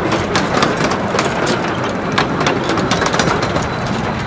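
Carriages of a 15-inch gauge miniature railway train rolling past close by, their wheels clicking over the rail joints at a few clicks a second over a steady rumble.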